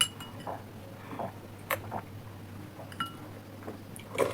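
A few light clinks of cutlery against plates and glassware, some with a brief ring, spaced over a few seconds.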